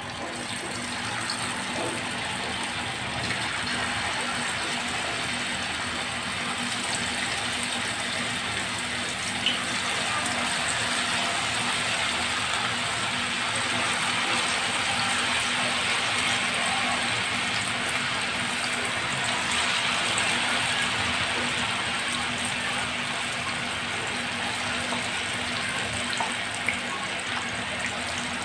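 Batter-coated chickpeas sizzling steadily as they deep-fry in hot oil in a kadai, a little louder in the middle, with a few small pops.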